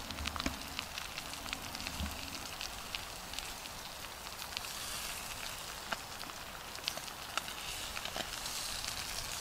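Cast-iron Dutch oven of stew sizzling on campfire coals: a steady faint hiss with scattered light crackles and clicks.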